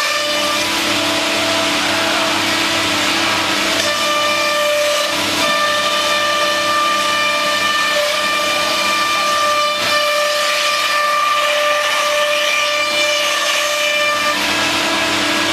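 C.R. Onsrud CNC machining center running: a steady high spindle whine made of several tones over a constant loud hiss. The tones change a few seconds in and again near the end.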